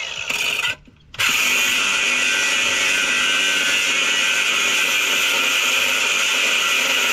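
Grinder with a cutting disc cutting into a car's flywheel, a steady high-pitched grind of disc on metal. It stops briefly about a second in, then resumes.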